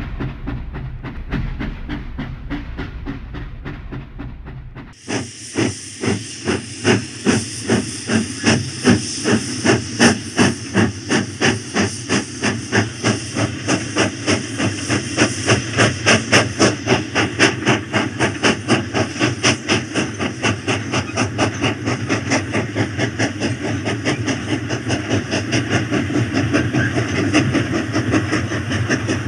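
Steam-locomotive chuffing sound with a steady hiss, rhythmic puffs at about two to three a second, starting suddenly about five seconds in. Before it, a rapid light clatter of a toy train running on plastic track.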